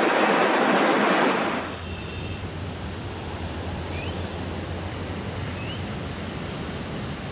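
A CC206 diesel-electric locomotive passing close by, a loud steady rumble of engine and wheels that cuts off about a second and a half in. A quieter steady low hum follows, with two short rising chirps.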